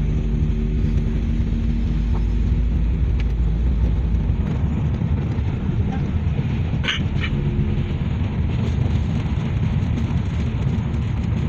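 Car driving along a road, heard from inside the cabin: a steady low rumble of tyres and engine. A brief high-pitched sound cuts in about seven seconds in.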